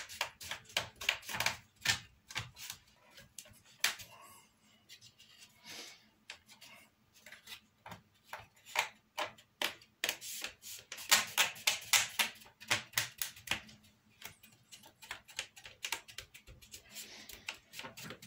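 Irregular runs of short, sharp clicks and taps as fingers press wooden model-bridge parts down, seating their tabs into the slots beneath, in clusters with quieter gaps between.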